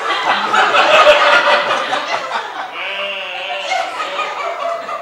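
A live theatre audience laughing, breaking out suddenly and slowly dying down.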